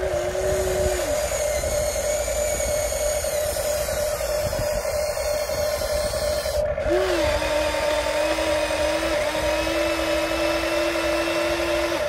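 Electric motors and gearboxes of a Huina 1593 RC excavator whining steadily as the boom, arm and bucket work. A second, lower motor whine rises and holds for about a second at the start, and comes in again from about seven seconds in.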